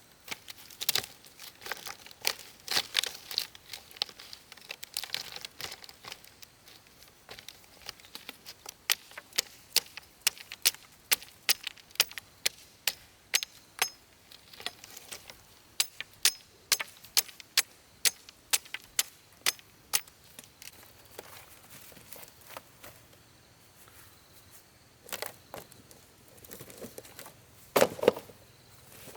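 An uneven run of sharp clicks and light taps, thickest in the middle and thinning out later, with a couple of louder knocks near the end.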